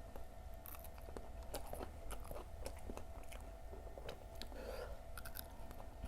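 Close-up chewing and crunching of Indonesian fried fritters (gorengan): irregular small crunchy clicks as the mouthful is chewed.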